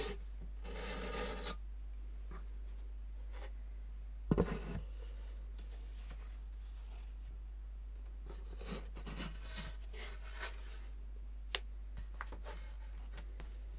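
Utility knife scraping and cutting along the taped edge of a sheet of drawing paper, with paper being handled. A short scrape about a second in, a single thump about four seconds in, more scraping between eight and eleven seconds, and a few light clicks near the end.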